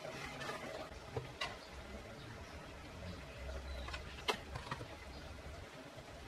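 Quiet kitchen handling sounds: a few light clicks and taps of a knife and utensils, the clearest about four seconds in, over a faint low hum.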